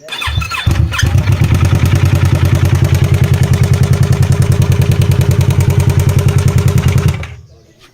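Yamaha MT-03 parallel-twin engine running with a rapid, even, rhythmic knocking: the dry knock from inside the engine that the owner traces to a burned head gasket. The engine sound rises at the start and stops about seven seconds in.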